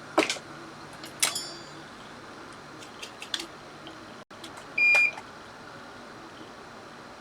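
A few light clicks and taps of small tools on the workbench, then one short, high electronic beep about five seconds in.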